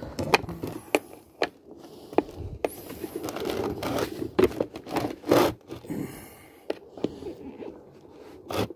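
A thin screwdriver scraping and prying at a plastic latch on a Philips Performer Pro vacuum cleaner's housing: irregular clicks and scrapes of hard plastic, with a few louder scrapes partway through.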